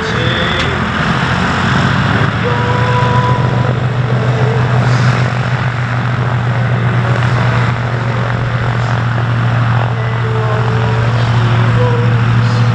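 The twin Pratt & Whitney R-1830 radial engines of a Douglas C-47A Skytrain running as the plane taxis close by: a loud, steady low drone with propeller noise.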